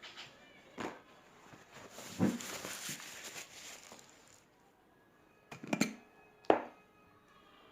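Kitchen handling sounds while lemons are stuffed with salt: several separate knocks and clunks, with a grainy hiss of salt lasting about two seconds in the middle.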